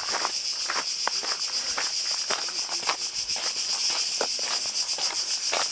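A steady, high, shrill chorus of cicadas, with the walker's footsteps coming through irregularly.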